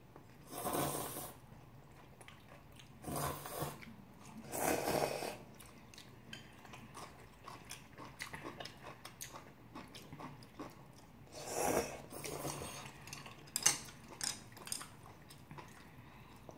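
Noodles slurped several times, the loudest about five seconds in, with chewing and light clicks of chopsticks and spoons against stainless-steel bowls in between.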